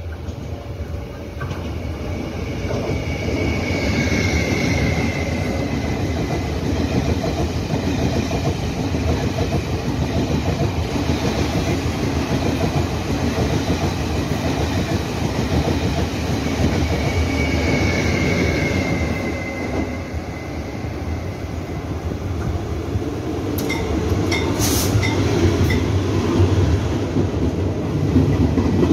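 A Taiwan Railway PP push-pull Tze-Chiang express, with an E300-class electric helper locomotive at the rear, runs through at speed. The steady rumble of wheels on rail builds as it arrives. A short falling high whine comes about four seconds in and again around seventeen seconds, and a few sharp clicks come near the end as the locomotive passes.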